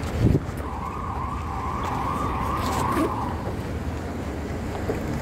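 A vehicle siren sounding in a quick, wavering wail for about three seconds, starting about a second in. A short low thump comes just before it.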